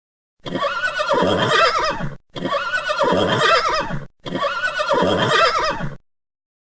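Horse whinnying three times in a row, each neigh about two seconds long with a quavering, up-and-down pitch; the three calls are identical, the same whinny repeated.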